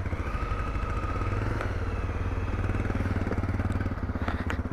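Single-cylinder engine of a Honda CRF250L dirt bike running steadily at low revs, with a fast even pulse.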